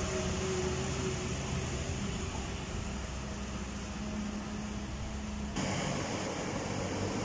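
Loaded lorry's diesel engine droning steadily as it drives away round the bend. About five and a half seconds in, the sound cuts abruptly to another heavy vehicle's engine.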